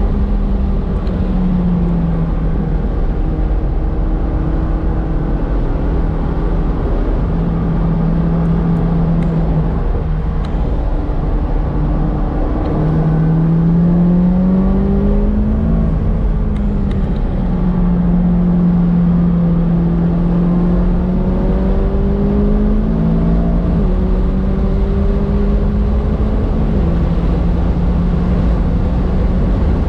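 McLaren 570S's twin-turbo 3.8-litre V8 heard from inside the cabin at track pace, its note repeatedly climbing and then stepping down as it shifts gears and slows for corners, over a steady low rumble.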